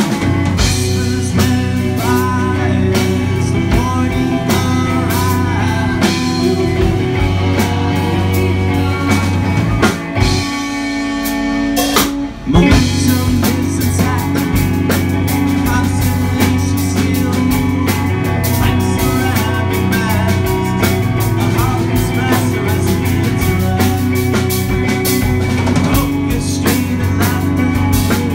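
A live band plays a rock song, with electric guitar, drums, and male and female singing. About ten seconds in, the low end drops away for roughly two seconds, and the full band comes back in on a loud hit.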